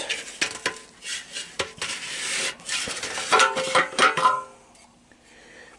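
Fuel tank cap on an old Honda ATC200S three-wheeler being twisted and pulled off by hand. There are clicks and knocks, scraping of the cap against the filler neck, and a short squeak about three and a half seconds in.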